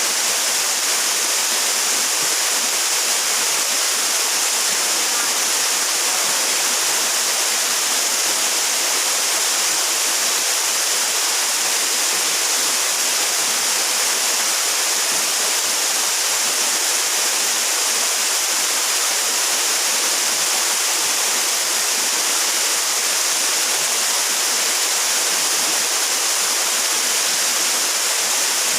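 Waterfall rushing in a steady, unbroken hiss.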